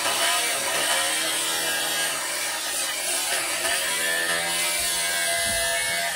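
A Dong Cheng angle grinder's cut-off disc cutting steadily through a rusty steel box-section beam: a continuous hiss from the disc in the metal over the whine of the grinder's motor.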